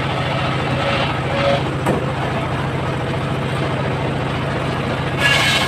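Homemade circular-saw rig running steadily with a constant low engine hum, a sharp click about two seconds in and a brief, harsher hissing burst near the end.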